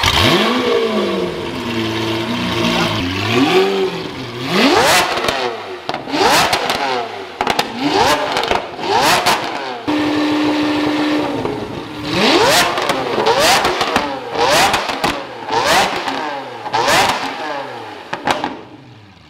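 Lamborghini Aventador LP700-4's V12 running through a valved Fi Exhaust with the valves open. It starts up with a flare and settles into a steady idle, then is revved hard in a string of short blips, each rising quickly and falling off with sharp cracks. About ten seconds in, one rev is held steady for a second.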